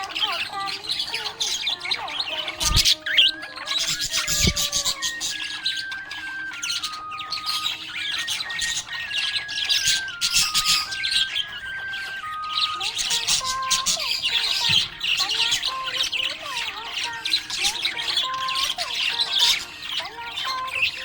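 Budgerigars chirping and chattering in a dense, unbroken stream of rapid high chirps and squawks.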